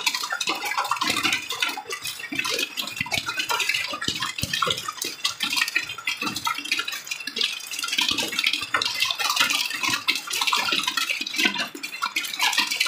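Heavy rain with hail falling, a dense, steady patter of countless small hits on the ground and the leaves overhead.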